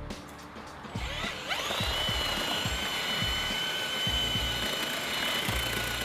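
Cordless paddle mixer (mud mixer) starting up about a second in with a rising whine, then running steadily as its paddle churns concrete mix in a plastic bucket.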